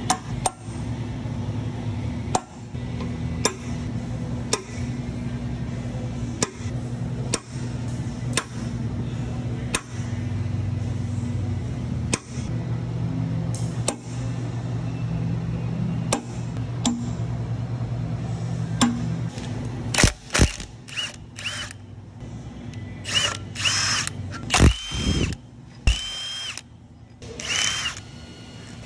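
Steel punch struck with a hammer about once a second against a large electric motor's end bell and bearing cap, driving them loose for a bearing change, over a steady low hum. About twenty seconds in, a cordless impact wrench takes over in short bursts, running up and stopping several times as it spins the bolts out.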